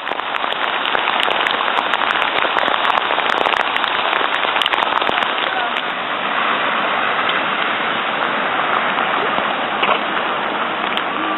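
Shower water spraying steadily onto a PVC raincoat: a loud, even hiss made of many small drop impacts, with no break.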